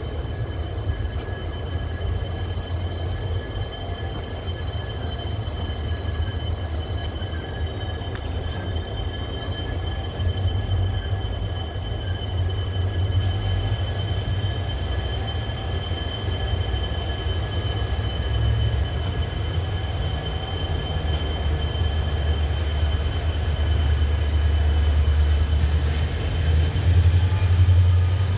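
Passenger train running, heard from on board: a steady deep rumble with thin high whines, one of which rises slowly in pitch while the sound grows a little louder toward the end.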